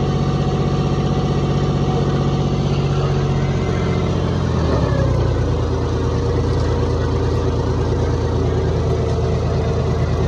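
John Deere 5050D tractor's three-cylinder diesel engine, fitted with a modified injection pump and turbo, running steadily while it pulls a 20-disc hydraulic disc harrow. About halfway through, the engine note drops a little and settles at a lower, steady pitch.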